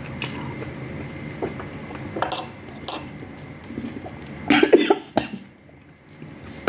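Eating sounds: cutlery clinks twice against a plate, then a short louder sound comes about four and a half seconds in.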